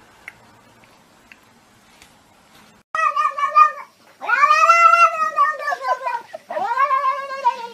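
Calico cat giving three loud, drawn-out meows starting about three seconds in. The middle yowl is the longest and falls in pitch at its end.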